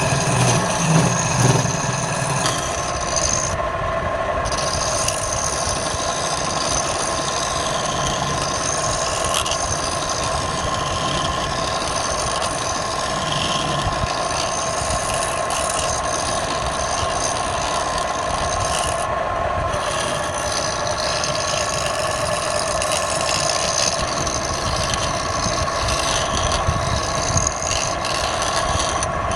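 Wood lathe running with a steady tone while a tool or abrasive works the spinning wood, a continuous rubbing, scraping sound.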